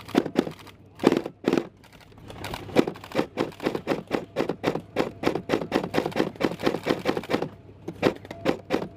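Airsoft gun firing: a couple of short bursts of shots, then a long rapid full-auto string of shots lasting about five seconds, then a few more shots near the end.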